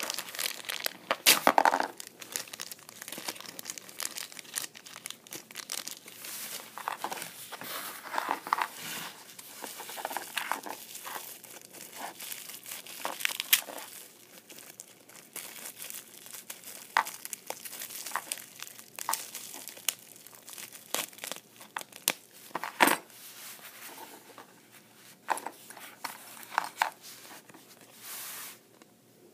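Thin clear plastic packaging bags crinkling and tearing as they are unwrapped by hand, with irregular sharp crackles.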